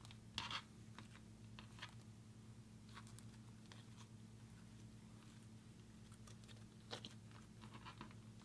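Chrome slime being stretched, folded and pressed by hand, giving faint sticky clicks and crackles, with louder pops about half a second in and again near seven seconds. A faint steady low hum runs underneath.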